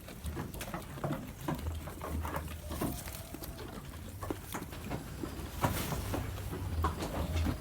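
Goat chewing crunchy food: a string of irregular crisp crunches and clicks.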